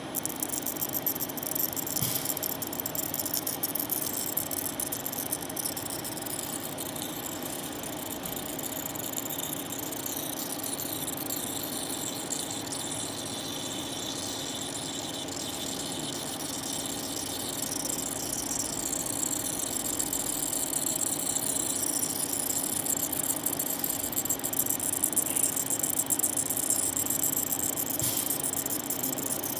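EDM drilling machine eroding carbide: a continuous fine crackling buzz from the spark discharges at the electrode, over a steady machine hum, starting as the cut begins.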